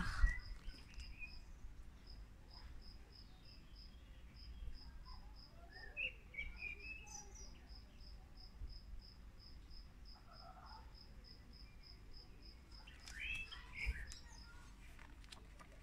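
Cricket chirping steadily, about four chirps a second, with a few faint bird chirps now and then. A soft bump sounds near the end.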